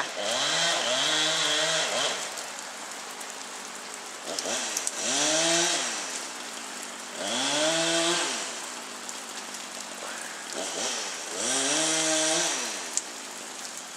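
Gas chainsaw revving up and dropping back four times, each rev lasting a second or two, with the engine running low between revs, as it cuts up trees downed by an ice storm.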